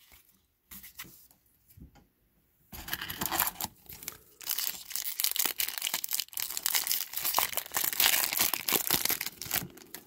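Foil wrapper of a trading card pack being torn open and crinkled: a dense crackling that starts about three seconds in and lasts about seven seconds, after a few faint handling clicks.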